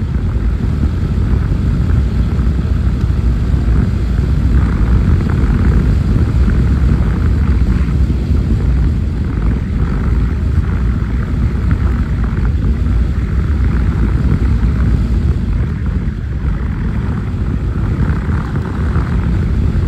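Steady, loud rumble of a motorcycle riding at speed: wind buffeting the phone's microphone, with the bike's running noise underneath.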